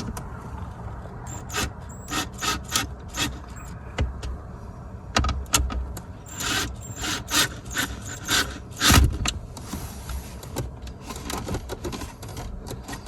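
Irregular clicks and knocks of plastic parts being handled while twist-lock fasteners are turned to secure a center console fridge in place, with one louder thump about nine seconds in.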